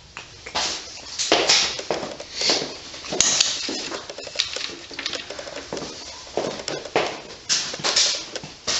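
Irregular scraping, rasping and clattering of hand tools working on engine parts, a quick run of short noisy strokes with uneven pauses.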